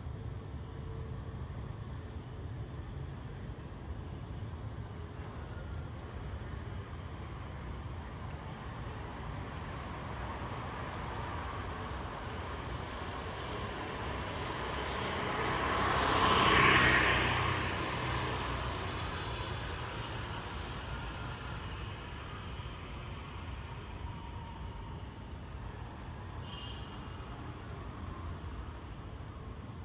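Crickets chirring steadily while a single vehicle passes, its noise swelling over several seconds to a peak about halfway through and then fading away.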